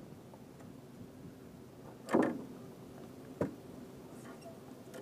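Two knocks in a small fishing boat as the landing net and catch are handled, the first louder, a little over a second apart, over a faint steady hum.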